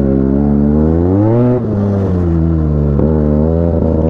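Benelli 300 motorcycle engine revving up and down under load while riding off-road: the revs climb, drop briefly about a second and a half in, dip again near the three-second mark and pick back up.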